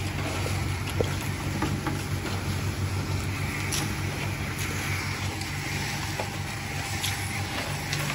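Sand-roasting drum machine for crackers running with a steady low hum, and a few sharp light clicks of metal and sand as a long metal rod is worked inside the drum.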